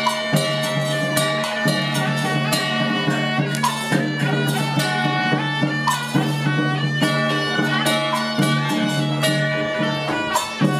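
Traditional temple music: a reed wind instrument plays a melody over a sustained low drone, with irregular drum and cymbal strikes.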